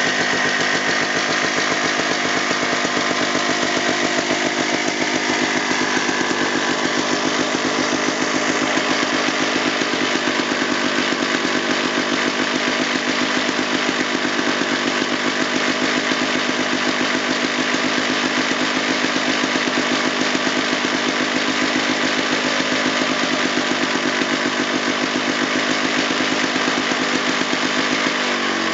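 Rockwell JLO L380 two-stroke single-cylinder, fan-cooled snowmobile engine running steadily on a test stand, breathing through an open carburetor velocity stack with no air cleaner. It picks up speed at the very end.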